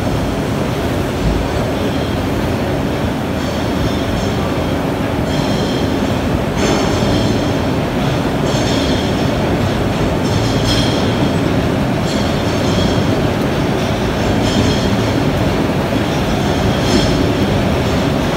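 Water-ride boat running along its flume channel toward the conveyor lift: a steady rumble of rushing water and ride machinery with repeated metallic clanks, roughly one a second.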